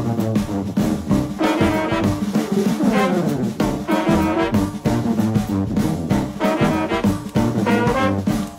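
Background music: an upbeat, jazzy tune led by brass instruments, playing continuously.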